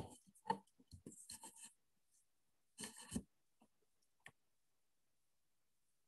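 Near silence broken by a few faint, brief rustles and clicks in the first half, with a single tick a little past four seconds.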